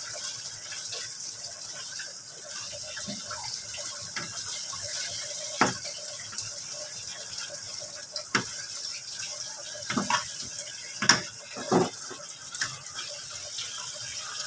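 Chicken in tomato sauce sizzling and simmering in a nonstick frying pan, a steady hiss. From about halfway through, a spatula stirring it knocks and scrapes sharply against the pan several times.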